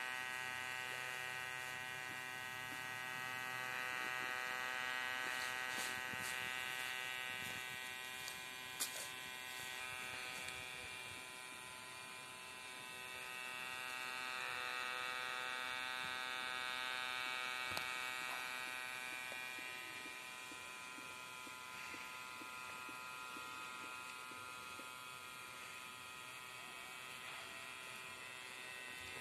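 Small DC hobby motor spinning the propeller of a homemade boat, giving a steady buzzing whine like an electric shaver. It slowly swells and fades, with a sharp tick about nine seconds in.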